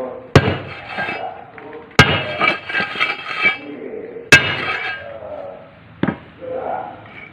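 Hammer blows on a steel hexagonal paving-block mould, compacting the concrete mix packed inside. Four sharp strikes come about two seconds apart, each followed by a metallic ring.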